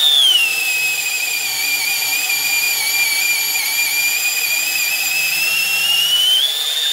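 Milwaukee M12 Fuel cordless drill in low gear boring into a wooden block with an Irwin Speedbor spade bit. Its high motor whine drops in pitch about half a second in as the bit bites and loads the motor, holds steady while cutting, and rises again near the end as the load eases.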